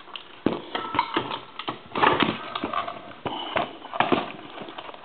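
Handling noise from a wooden wall telephone being reassembled: a run of irregular knocks, clicks and rattles as its circuit-board and keypad assembly is moved about against the wooden housing, starting about half a second in.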